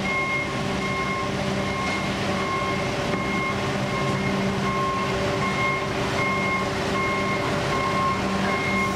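Diesel construction machinery running steadily, with a backup alarm beeping over and over at an even pace.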